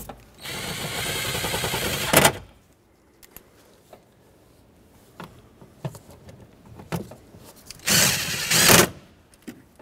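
A handheld power tool runs down two 10 mm panel bolts. The first run buzzes for nearly two seconds and ends with a sharp hit. The second, shorter run comes near the end, with a few light knocks of handling in between.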